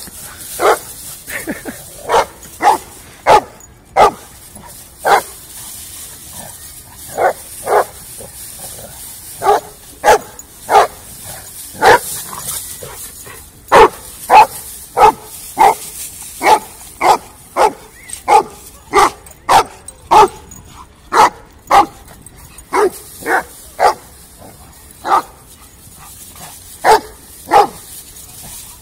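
Dogs barking over and over in short, sharp single barks during rough play. The barks come in loose runs, quickest through the middle at about two a second, with short pauses in between.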